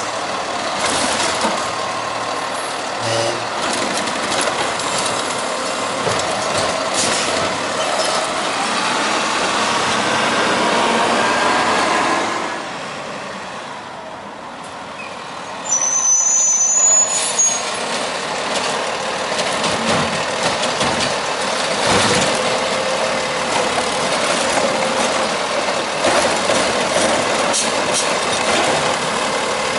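Peterbilt 520 garbage truck with a Heil STARR automated side-loader body, its engine running as the hydraulic arm lifts and empties a trash cart. After a quieter stretch it pulls up to the next cart with a short high squeal as it stops, and the arm starts another lift near the end.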